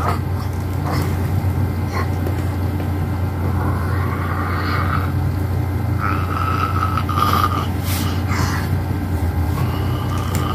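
A steady low mechanical hum throughout, with two faint higher tones about four and six seconds in.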